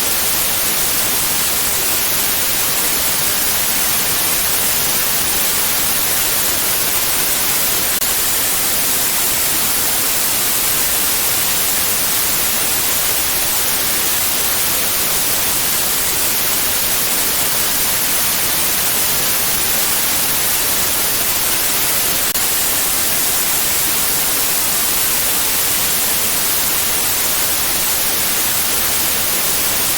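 Steady synthetic white noise: an even, unchanging hiss, strongest in the high frequencies.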